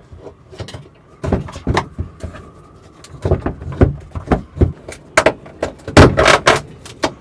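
Irregular knocks, clunks and rattles of hands working on the heater installation while the crooked fuel line is bent into line. The loudest run of clunks comes about six seconds in.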